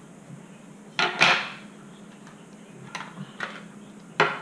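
Plastic housing of a DeWalt FlexVolt battery pack being pried apart by hand: hard plastic clacks and rattles, with a loud pair about a second in, lighter knocks later, and another sharp clack near the end.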